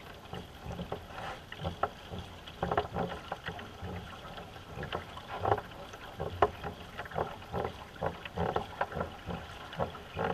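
Racing canoe being paddled hard: paddle blades catching and pulling through the water in a steady rhythm of short splashing strokes, one to two a second.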